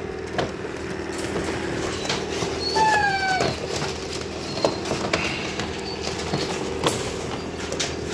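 Husky puppy giving one high whine about three seconds in, sliding down in pitch, amid scattered clicks and rustles of puppies moving in a wire crate. A steady low hum runs underneath.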